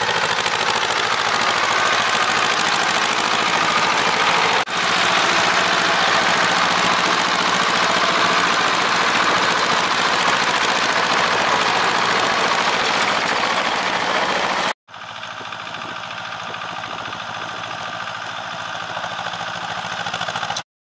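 Ursus C-330M tractor's two-cylinder diesel engine running steadily. The sound drops out for a moment about five seconds in, then cuts off about fifteen seconds in and picks up again quieter.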